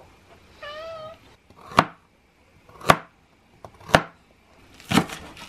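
A cat meows once, a short wavering call. Then a kitchen knife chops through a carrot on a plastic cutting board: four sharp cuts about a second apart, louder than the meow.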